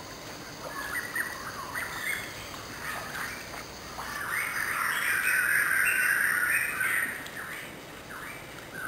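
Birds chirping and calling in short quick notes over a steady faint high hum, with a dense stretch of chirping from about four and a half to seven seconds in.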